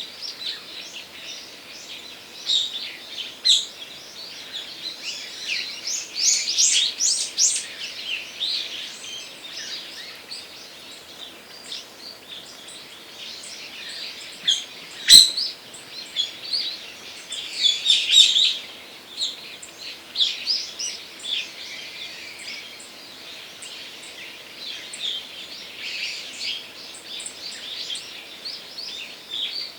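Songbirds chirping and calling, many short overlapping notes, busiest in the first half. One sharp click about halfway through.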